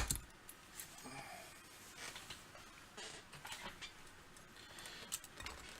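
Faint clicks, taps and rustling of snap-together plastic model-kit parts being handled, with one sharper click at the start.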